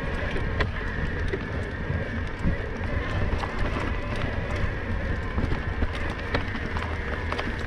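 Mountain bike riding over a rough dirt trail: a steady low rumble of wind and trail vibration on the camera, with frequent clicks and rattles from the bike over bumps and a faint steady whine.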